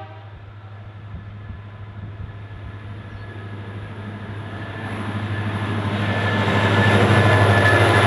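A consist of QR National diesel locomotives hauling grain wagons approaching and passing, the steady low drone of the engines and the rumble of the wheels on the rails growing louder until the locomotives reach full level about seven seconds in.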